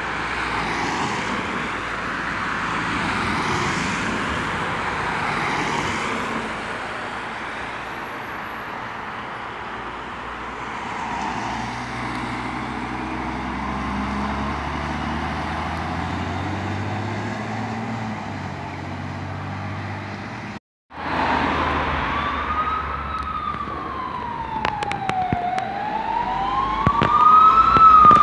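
A fire engine's diesel engine pulls past, with a faint wavering siren in the first seconds. After a sudden break, a fire brigade command car's siren wails, rising and falling in slow sweeps and growing louder as the car approaches.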